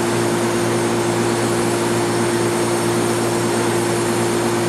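Steady hum and hiss of running air-conditioning machinery, with one constant mid-pitched tone over an even rushing noise.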